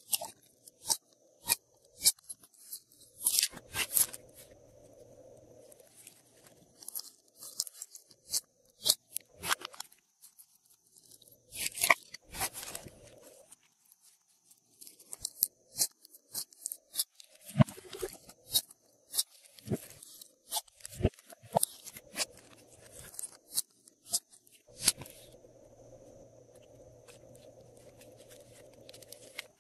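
Hands squeezing, pressing and folding glossy slime, making irregular sharp clicks and pops that come in quick clusters with short pauses between.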